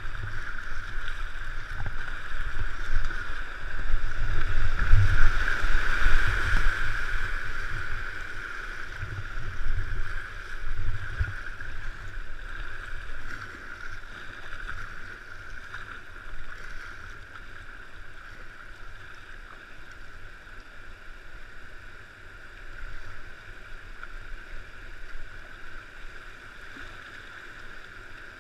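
Steady rush of a swollen river's current and rapid, heard from a paddled whitewater kayak, with wind rumbling on the microphone during roughly the first twelve seconds.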